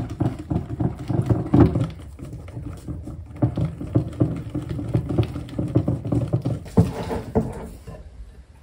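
A wire whisk beating batter in a ceramic mixing bowl, with flour being sifted through a metal mesh sieve. It makes quick, irregular scraping and tapping strokes against the bowl, with a couple of sharper knocks near the end.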